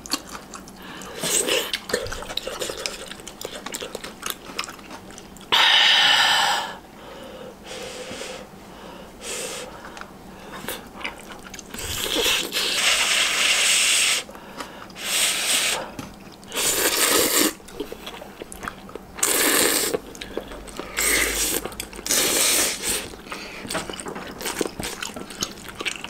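Slurping spicy instant ramen noodles and broth from chopsticks and spoon: about seven separate slurps, the longest near the start and around the middle, with quieter pauses between.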